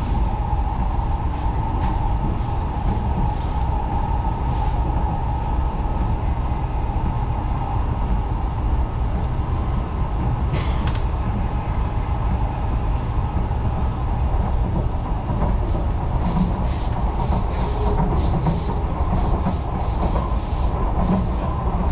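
Singapore MRT North South Line train running between stations, heard from inside the carriage: a steady rumble of wheels and motors, with a tone that fades out about halfway through. Near the end comes a run of short high-pitched hisses.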